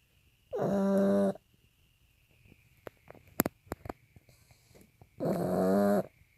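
Pug snoring in its sleep: two loud, pitched snores, one about half a second in and one near the end, with a few brief clicks in between.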